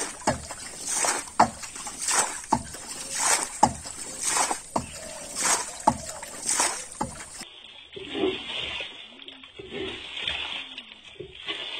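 Rainwater being bailed out of a boat by hand, one scoop and splash of thrown water about every second. After about seven and a half seconds the sound cuts to a quieter, duller stretch with faint short calls.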